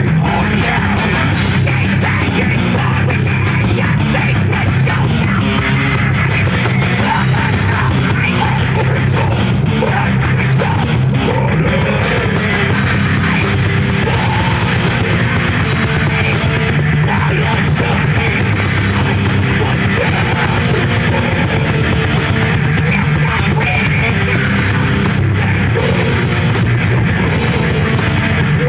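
A heavy metal band playing live, loud and continuous, with distorted guitars, bass and drums, heavy in the low end.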